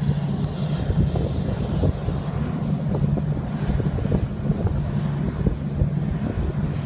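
Steady low drone of jet aircraft engines running, over an uneven low rumble.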